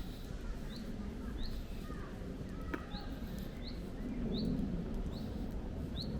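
A bird repeating a short, rising chirp roughly every three-quarters of a second, over a steady low rumble.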